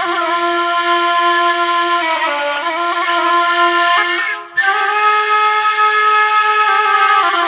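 A wind instrument playing a melody over a lower held note, with a short break for breath about four and a half seconds in.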